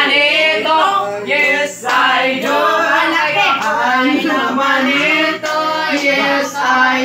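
Several people singing loudly together in a group chant, over a steady low hum.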